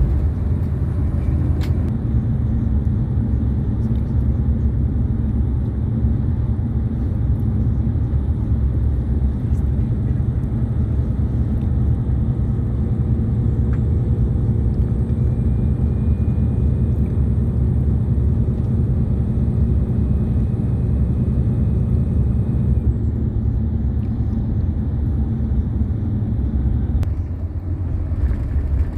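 Steady low engine and road rumble inside a moving bus.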